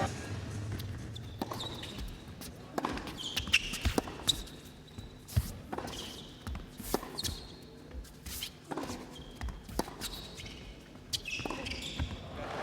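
Tennis rally: racket strings striking the ball and the ball bouncing on the court, a sharp hit about every second. Short high squeaks of tennis shoes on the court come in between.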